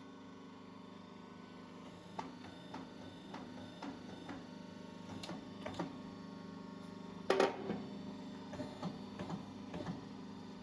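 Metal crimping tooling being handled and fitted onto an air suspension strut's aluminium cover: scattered light clicks and taps, with one louder clank about seven seconds in, over a steady electrical hum.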